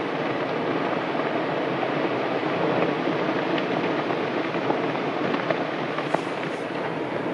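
Basaltic lava fountain at Piton de la Fournaise erupting: a steady rushing noise with scattered crackles, and a few sharper pops in the second half.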